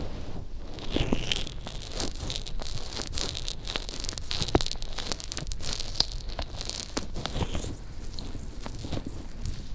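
Fingers massaging the silicone ear of a homemade binaural microphone with lotion, giving a dense, irregular run of small wet crackles and clicks. The rubbing is directly on the microphone's ear, so it sounds very close.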